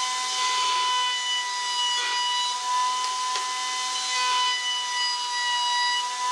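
Table-mounted router running at full speed, a steady high whine, while its bearing-guided roundover bit cuts along the edge of a wooden strip, with the hiss of the cut.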